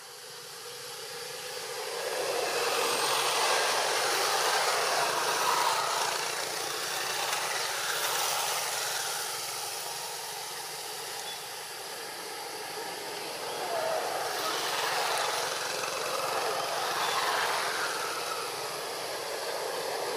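Outdoor background ambience: a broad rushing hiss that builds about two seconds in, eases off in the middle and swells again near the end.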